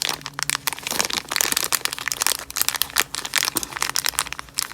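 Plastic packaging crinkling and rustling in the hands, in a quick, irregular run of crackles.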